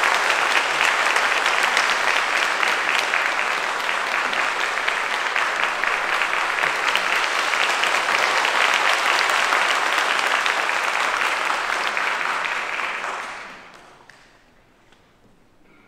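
Audience applause, dying away about thirteen seconds in.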